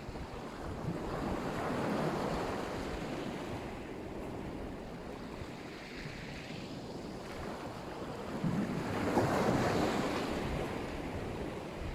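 Black Sea surf: waves breaking and washing up the shore, swelling twice, at about two seconds in and again near the end, with wind rumbling on the microphone.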